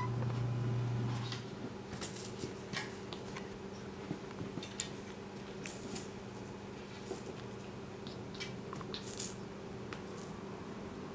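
Scattered light clicks, taps and scratchy rustles of a kitten playing, pawing at a toy hanging from a wooden A-frame scratcher. A steady low hum underneath drops to a fainter level about a second and a half in.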